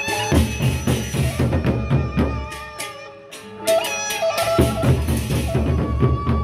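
Gendang beleq ensemble playing: the big Sasak barrel drums beat two runs of rapid strokes with a short lull in between, with ringing pitched tones and metallic percussion above.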